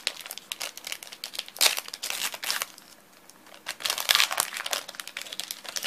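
Foil wrapper of a Pokémon card booster pack crinkling as it is handled and torn open, crackling throughout with two louder bursts about two seconds apart.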